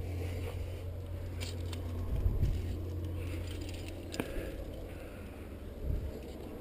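A climber's hands, shoes and gear scraping and clicking against rock, with a few sharp clicks and two dull thumps, over a steady low rumble on the head-mounted camera.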